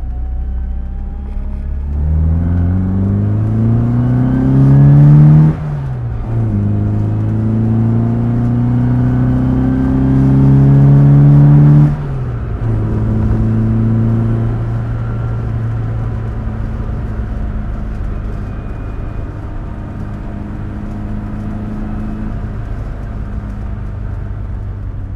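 A 1966 Austin Mini Cooper S rally car's four-cylinder engine with twin SU carburettors is pulled up through the revs twice. Each rise lasts several seconds and ends in a sudden drop in pitch and loudness. After that the engine runs steadily at lower revs, gradually easing off.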